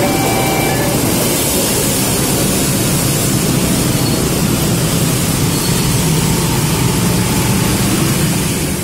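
Railway level-crossing alarm sounding alternating electronic tones, which stop about a second in; then a steady din of traffic with many motorcycle engines as the waiting riders move off across the tracks.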